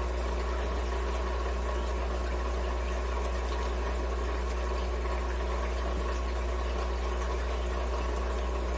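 Steady low electrical hum with a faint even hiss, unchanging throughout: the background noise of the recording, with no other sound.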